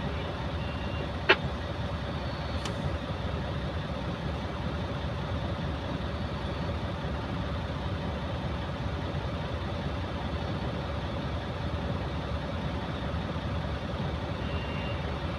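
Tonly TL859 mining dump truck's diesel engine running steadily under load with a steady hum, as the truck struggles to climb with its right rear tyre slipping. A single sharp click about a second in.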